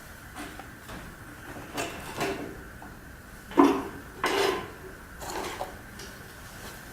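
Chainsaw chain and bar being handled during a chain change: a series of metallic clinks, rattles and knocks, the loudest about three and a half seconds in, over a faint steady high tone.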